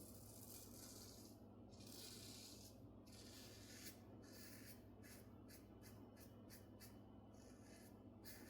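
Faint scraping of a safety razor's Astra blade cutting through lathered stubble against the grain. A few longer strokes come first, then a quicker run of short strokes, about three a second.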